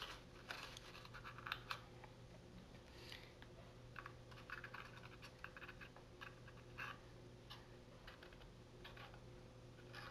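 Faint, scattered rustles, scratches and light taps of cardstock being handled and pressed into shape by hands, with small clicks as a plastic glue bottle is picked up and used.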